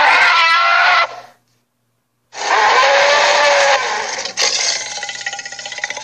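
Cartoon Tyrannosaurus roar sound effects played through laptop speakers: a short roar, about a second of silence, then a longer roar that breaks into a rattling growl near the end.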